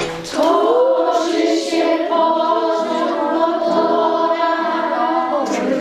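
A group of children singing together without accompaniment, led by a woman.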